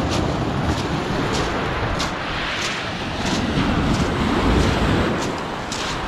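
Sea waves breaking and washing up a pebble beach, with wind buffeting the microphone, the surge swelling about halfway through. Short crunches of pebbles underfoot come at walking pace, about two a second.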